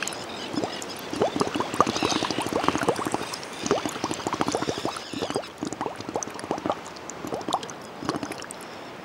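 Water bubbling: a quick, irregular run of small rising blips, several a second, easing off a little after about five seconds.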